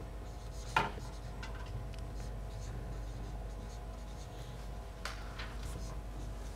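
Dry-erase marker writing on a whiteboard: a run of short scratchy strokes, with a sharper stroke about a second in and another around five seconds in.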